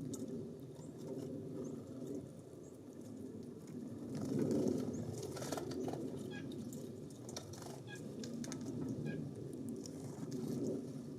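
Small songbirds at a feeder giving a few short, high chip notes about halfway through, with scattered light clicks and rustles over a steady breeze-like rush.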